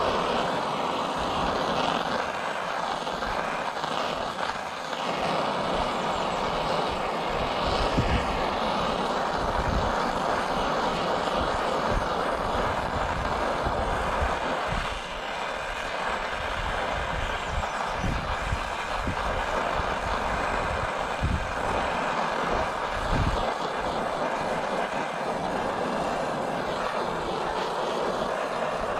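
Oxy-fuel torch flame burning steadily as it preheats the broken handle joint of a cast iron skillet before nickel-rod welding.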